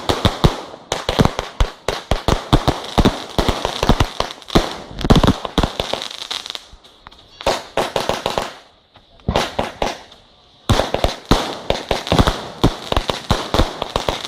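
Fireworks display: rapid, dense volleys of sharp bangs and crackling, easing into a brief lull about two-thirds through before the bangs start again.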